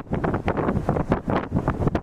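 Strong wind buffeting the microphone, rising and falling in uneven gusts.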